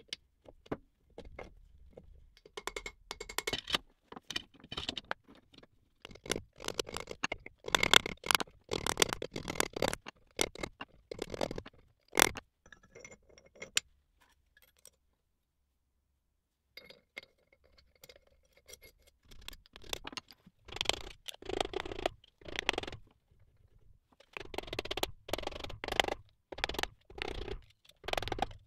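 Steel spindle and roller-bearing parts being handled and fitted into a milling-machine spindle housing: irregular clinks, scrapes and light knocks of metal on metal, with one sharp click about twelve seconds in and a quiet pause just after.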